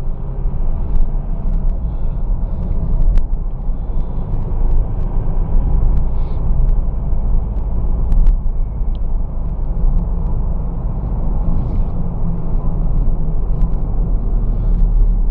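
Car cabin noise while driving at a steady speed: a low, steady engine and road rumble, with a few brief faint clicks.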